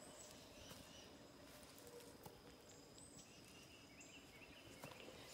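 Near silence: faint outdoor ambience with a few faint, short, high-pitched chirps.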